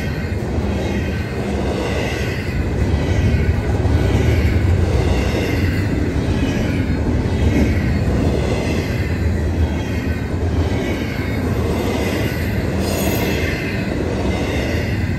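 Double-stack container train's well cars rolling past: a steady rumble of steel wheels on rail.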